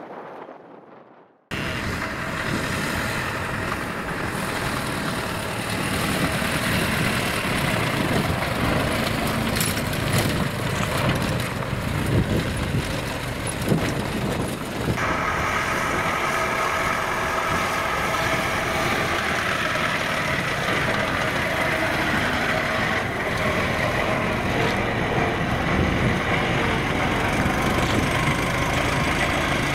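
Car engine running steadily with tyre and road noise from a vehicle moving along a rough chalk track. It cuts in abruptly after a second and a half of near silence.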